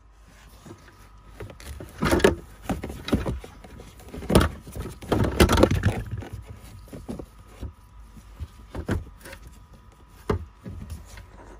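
Irregular scraping, rustling and knocking as a pleated cabin air filter is pushed into its plastic housing behind the footwell trim, close to the microphone. The loudest scrapes come about two seconds in and between about four and six seconds in, with a few lighter knocks later.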